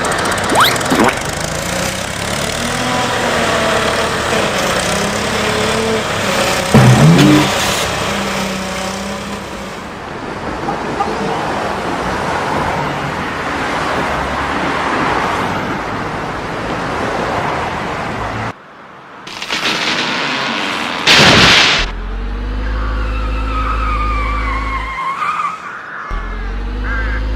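Cartoon vehicle sound effects: engine noise with short tyre-skid glides and a few sharp hits, then two loud whooshes about two-thirds of the way in, followed by steady low tones.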